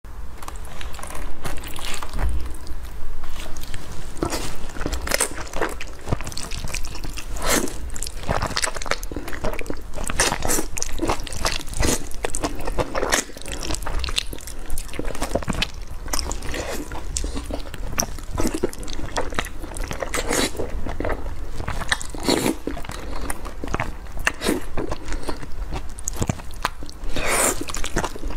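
Close-miked eating of thick sauced noodles: wet slurps as the noodles are drawn into the mouth, and chewing, coming irregularly throughout.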